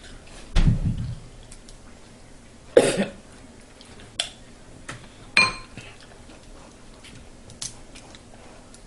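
Scattered clinks and knocks of dishes and cutlery while eating a seafood boil: a dull thump about half a second in, then a few sharp clicks, one clink ringing briefly about five seconds in.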